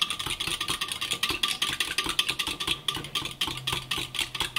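Metal wire whisk beating a liquid batter mix of buttermilk and egg in a glass Pyrex measuring jug: quick, rhythmic clinking of the wires against the glass, about five or six strokes a second.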